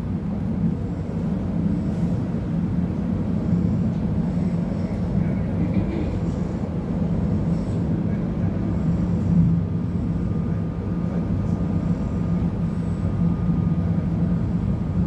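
Z 50000 (Francilien) electric train heard from inside the passenger car while running: a steady low rumble of wheels and running gear with an electric hum. A faint steady high tone comes in about ten seconds in.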